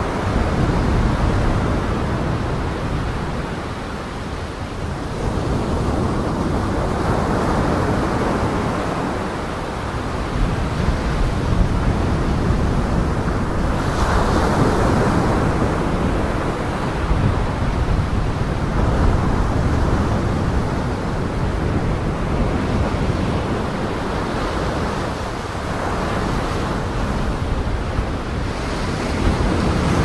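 Heavy surf crashing and surging against a seawall, with wind; the rush swells and eases every few seconds.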